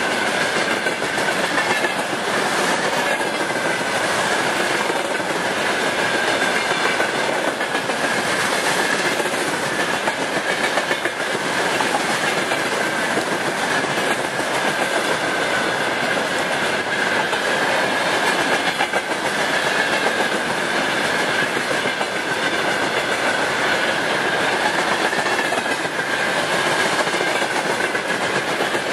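Freight train of railway tank cars rolling past close by, wheels clattering steadily over the rails. A steady high whine runs under the clatter throughout.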